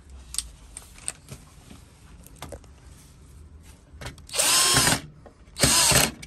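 Cordless power screwdriver whirring in two short bursts, about four seconds in and again just before the end, removing the screws that hold a combi boiler's electronic control board. A few small clicks come before.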